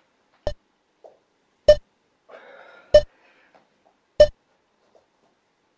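Sharp, ringing hits repeating evenly about every second and a quarter, four in all, the first one softer.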